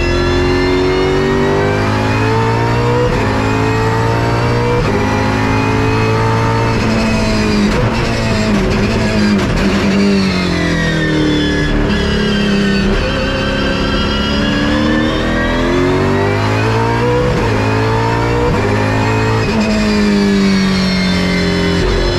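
Holden Commodore VF Supercar's V8 racing engine and Xtrac six-speed sequential straight-cut gearbox at racing speed. The pitch climbs and drops repeatedly through gear changes, with a long fall about halfway through before it climbs again, and a high-pitched gear whine runs over the engine note.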